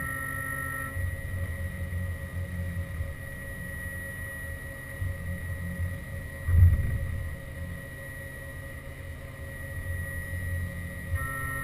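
Haas VF2 CNC mill running, with a steady high whine and an uneven low rumble. A second set of tones cuts out about a second in and comes back near the end, and there is one louder thump about six and a half seconds in.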